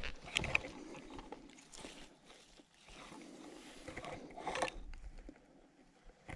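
Rustling and scattered light clicks of a jacket sleeve and hands moving close to the microphone while a freshly landed cutthroat trout is handled in the grass, with a louder brush of noise about four and a half seconds in.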